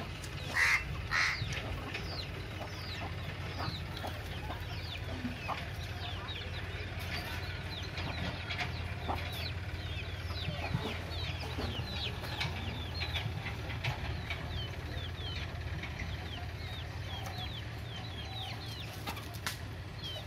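Chicks peeping over and over in short, high, falling cheeps while the flock feeds, with two louder calls from a grown chicken about a second in. A steady low hum runs underneath.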